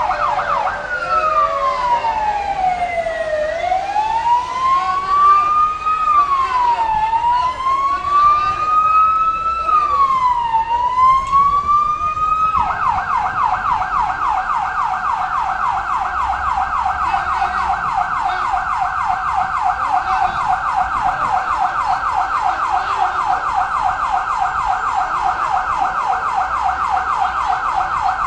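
Ambulance siren sounding continuously: a slow wail sweeping down and up every couple of seconds, which switches about halfway through to a fast yelp.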